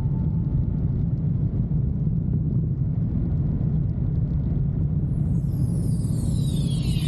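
Steady low rumble of a motorcycle riding at highway speed, engine, wind and road noise blended together. Near the end a falling sweep of high tones comes in over it.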